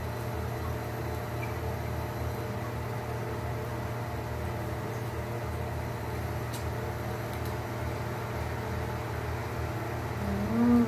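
Steady low mechanical hum at an even level. Near the end comes a short voiced sound, the loudest moment.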